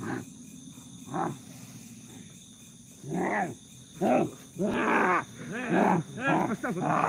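A man in a trance growling and roaring like a tiger: short roars that rise and fall in pitch, faint at first, then coming in quick succession from about three seconds in. Those around him take it for possession by a tiger spirit.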